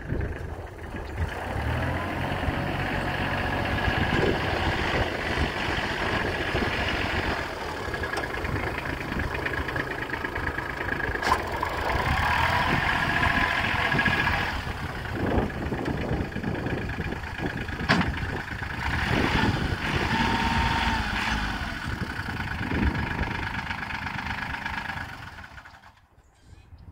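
Kubota L2900 compact tractor's three-cylinder diesel engine running as the tractor is driven about on gravel, with a steady high whine over it. Two sharp clicks come partway through, and the sound fades out just before the end.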